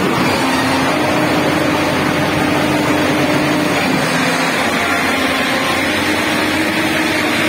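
Tata Hitachi excavator's diesel engine running steadily, a loud even drone with a faint hum.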